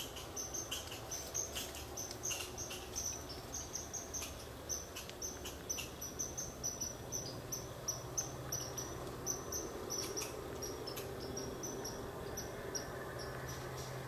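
A run of short, high chirps, about three a second, from wildlife in the brush, thinning out near the end, over a faint steady low background.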